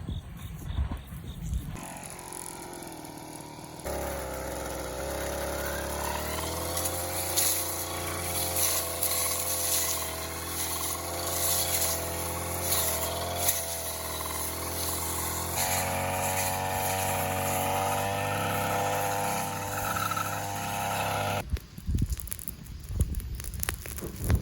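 A small engine running steadily, its pitch wavering slightly. The sound changes abruptly about four seconds in and again about sixteen seconds in, and the engine drops out a few seconds before the end.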